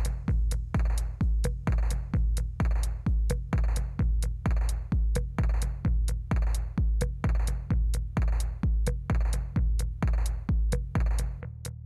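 Electronic dance music with a steady, pounding drum-machine kick and sharp hi-hat clicks at about two beats a second, breaking off near the end.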